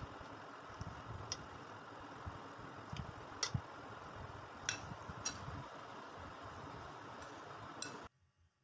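Metal spoon clinking sharply against a glass plate and bowl now and then, about six times, as crumbly semolina churi is spooned out, over a steady background hiss. The sound cuts off suddenly near the end.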